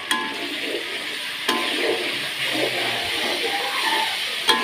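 Blended chili sambal sizzling in a wok, frying in freshly added oil once its water has cooked off, while a metal spatula stirs it and strikes the wok a few times with short ringing clinks.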